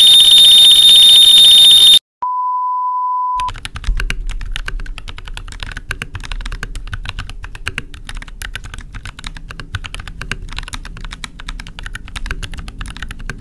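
Computer keyboard typing sound effect: rapid, dense key clicks for about the last ten seconds. It is preceded by a loud, harsh, high-pitched noise lasting about two seconds and then a steady beep of about a second.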